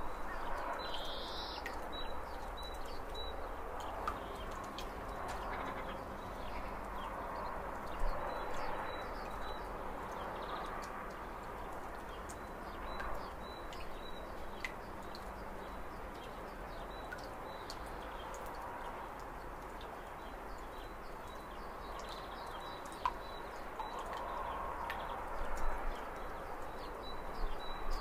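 Steady rushing of white-water river rapids, swelling and easing slowly, with small birds chirping in short runs over it, a louder chirp about a second in.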